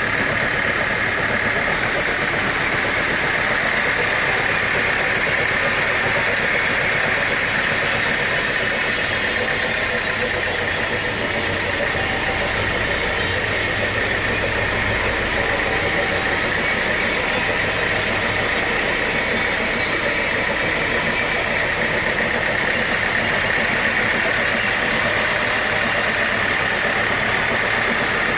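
Sawmill machinery running steadily, with a high hiss added from about seven to twenty-three seconds in.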